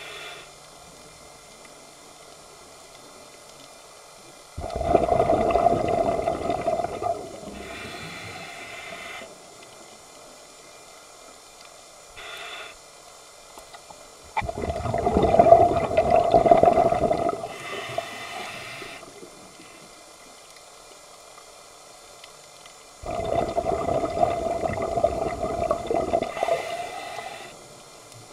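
Underwater scuba breathing: three long gushes of exhaled bubbles from a diver's regulator, each followed by a softer hiss of inhalation through the regulator.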